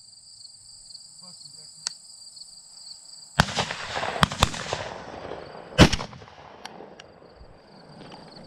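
Shotgun shots: a sharp report about three and a half seconds in, two more close together around four seconds, and the loudest just before six seconds. A steady high buzz of insects runs underneath.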